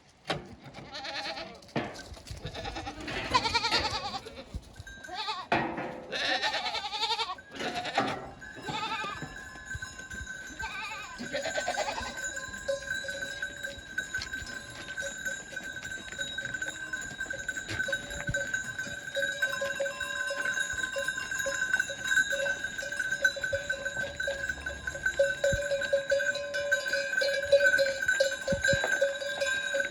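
Goats bleating several times in the first dozen seconds, then the bells of the herd ringing steadily.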